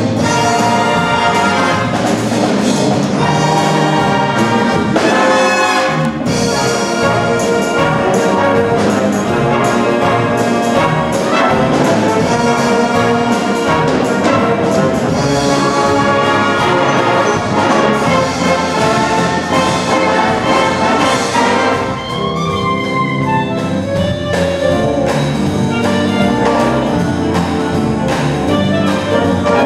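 Youth wind band playing live, with brass and woodwinds sounding together. About 22 seconds in the full band falls back to a thinner, softer passage, with a clarinet soloist standing at a microphone.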